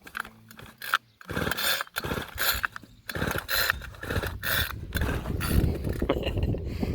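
Recoil pull-starter of a Homelite i625CD two-stroke mini trimmer being yanked over and over, the cord rasping out about once or twice a second while the engine turns over without catching. The trimmer has a carburettor fault.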